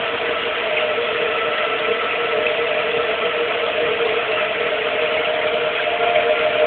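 Outdoor tornado warning siren sounding a steady chord of two pitches, growing slightly louder toward the end.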